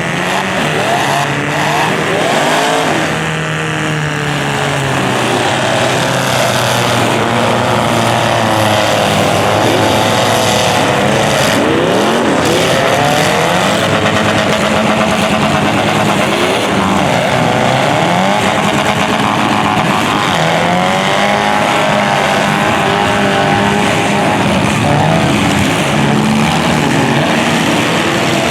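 Several demolition derby car engines running loud together, their pitches rising and falling and overlapping as they rev.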